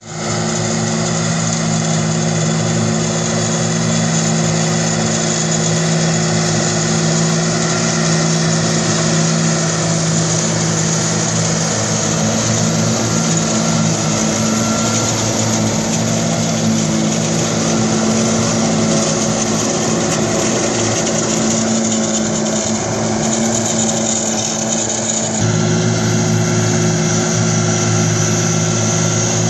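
John Deere 8530 tractor's six-cylinder diesel running under steady load, driving a Pöttinger Mex 6 trailed forage harvester as it picks up and chops grass from the swath. A loud, even machine drone whose tone changes abruptly about 25 seconds in.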